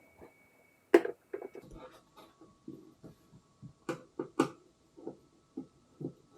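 A run of irregular clicks and knocks, the loudest about a second in and two more sharp ones past the middle, over a faint steady whine that shifts to a lower pitch about two seconds in.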